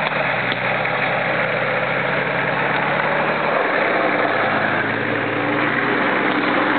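Nissan Patrol 4x4's engine running steadily at close range, its note shifting about halfway through.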